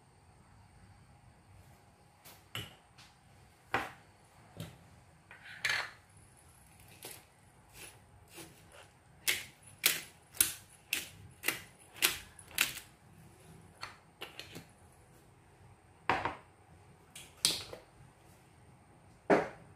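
Sharp clicks and cracks from a hand pepper grinder twisted over the chicken, grinding peppercorns. A run of louder clicks comes about two a second in the middle, with scattered single clicks before and after.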